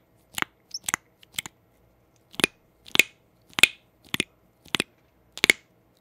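Suction cups on a Poopeeroos toy popping again and again as they suck together and snap free, like a 'snappers' toy. Short sharp pops come about every half second, some of them in quick pairs.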